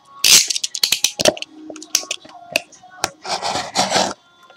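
Hands handling trading cards and their packaging: a run of rustles, scrapes and small clicks, with a longer crinkly rustle near the end.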